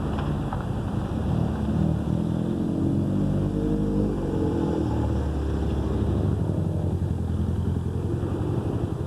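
A vehicle's exhaust note from a running engine. The pitch climbs as it is revved about three seconds in, then holds at a steady, faster beat.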